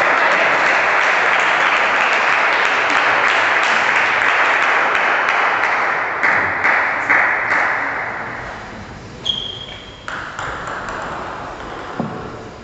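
Crowd applauding after a table tennis point, fading away over about eight seconds. Near the end comes a single sharp tap.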